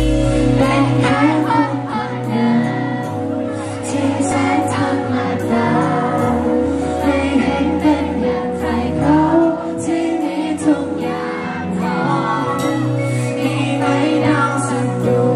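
Live band music: a male singer singing into a microphone over electric guitar, a bass line that changes note every few seconds and a steady beat.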